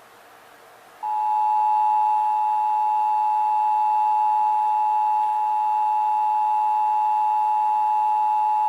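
Emergency Alert System two-tone attention signal, 853 Hz and 960 Hz sounded together, starting about a second in and holding steady and loud. It is the alert tone of a Required Monthly Test of the Emergency Alert System.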